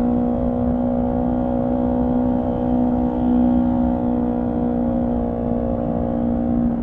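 Honda CB125T's four-stroke parallel-twin engine running under way at a steady speed, its note holding an almost constant pitch. The bike is running with its air cleaner and silencer removed.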